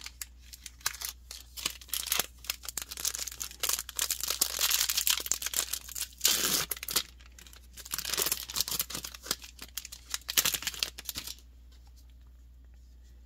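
Foil wrapper of a Magic: The Gathering draft booster pack being torn open and crinkled, with a long run of ripping and crackling that stops sharply near the end.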